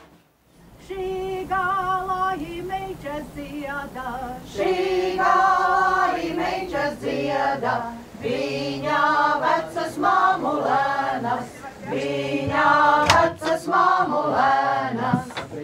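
A folk choir of mostly women's voices singing unaccompanied, starting about a second in with long held notes.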